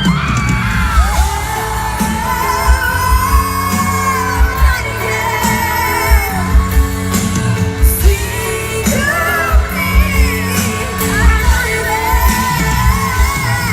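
Pop ballad with a woman singing over a backing track, held sung notes over a steady low drum beat.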